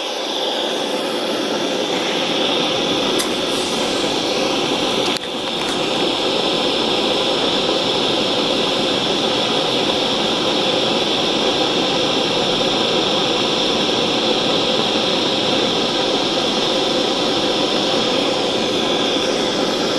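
Small soldering torch flame hissing steadily, in use for silver-soldering a metal eyeglass frame, with a brief dip about five seconds in.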